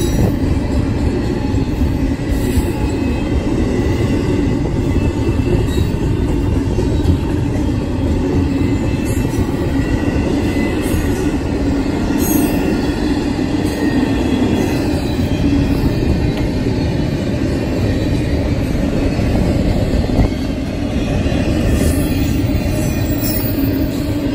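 Double-stack intermodal container well cars rolling past close by: a steady rumble of steel wheels on rail, with a faint wheel squeal held over it.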